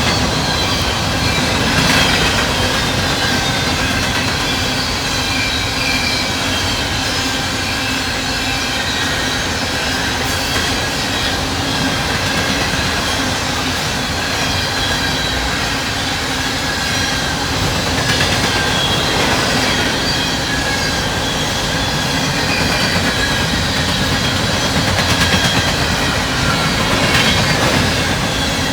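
Loaded Norfolk Southern coal train passing at speed: a steady rush of steel wheels on rail with a faint high wheel squeal and a few sharp clicks.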